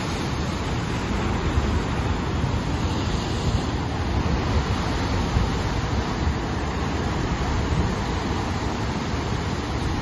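Heavy ocean surf breaking over a rocky shoreline: a continuous, even rush of whitewater with no single crash standing out. Wind rumbles low on the microphone underneath.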